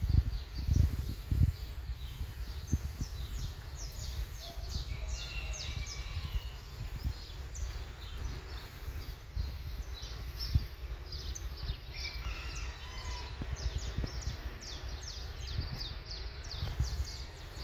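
Small birds chirping repeatedly in short, quick, falling notes, over low rumbles of wind on the microphone that are strongest in the first second and a half.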